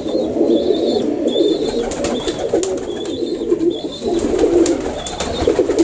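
Several Baku pigeons cooing in the loft, their low, wavering coos overlapping without a break.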